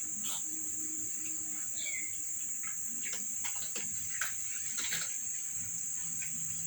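Steady, high-pitched insect trill, like crickets, with a few faint scattered clicks.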